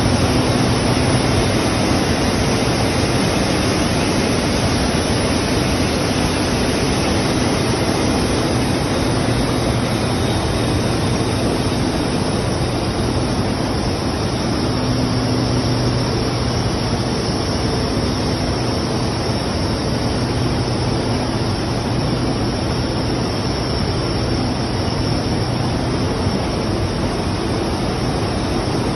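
Comexi FB 2108 gearless central-drum flexographic printing press running: a loud, steady machine noise, a dense hiss over a low hum.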